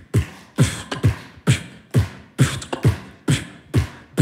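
Beatboxing into a handheld microphone: a steady pulse of deep bass-drum kicks made with the mouth, each falling quickly in pitch with a hissy edge, about two a second.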